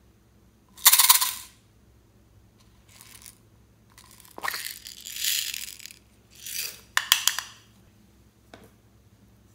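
Slime being squeezed and pressed by hand, giving about half a dozen short bursts of crackling and clicking as air pockets pop.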